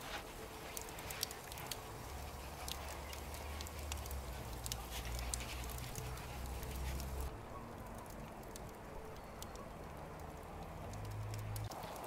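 Wood fire crackling, with scattered sharp pops and snaps over a low rumble; the crackling thins out about seven seconds in.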